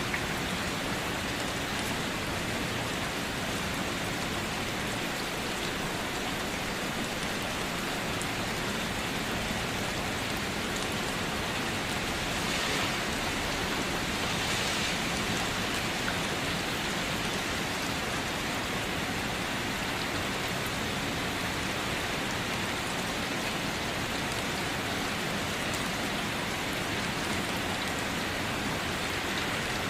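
Steady rain falling and pattering on surfaces, an even hiss with no thunder.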